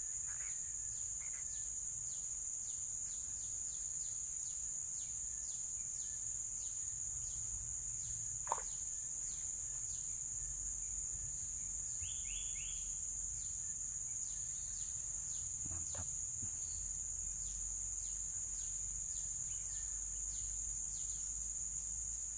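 Steady high-pitched drone of insects in the riverside vegetation, with short falling chirps repeating through it. A sharp click about eight seconds in, and a fainter one about eight seconds later.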